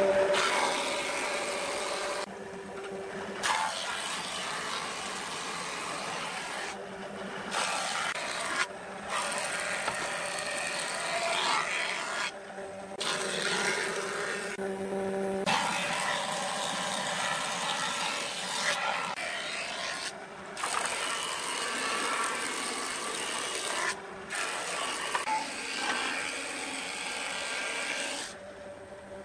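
Woodworking machines cutting wood: a surface planer shaving boards and a circular saw ripping a plank, heard as a string of short cuts a few seconds each that break off abruptly and start again.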